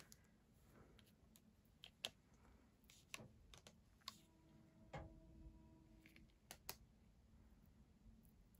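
Near silence with scattered faint, light clicks and taps: clear acrylic stamps being peeled from their plastic backing sheet and set down on a card.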